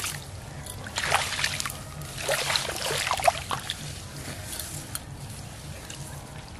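Muddy water splashing and sloshing as a hand gropes in a shallow hole at a canal bank and hauls out a large fish, in short bursts about a second in and again from about two to three and a half seconds in, with one sharp splash near the end of those.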